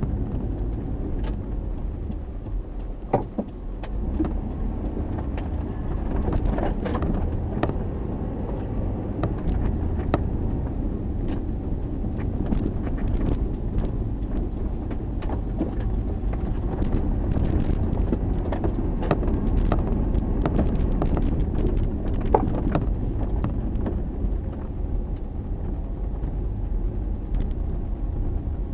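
Chevrolet Tahoe on the move: steady engine and road rumble with many small clicks and rattles through it.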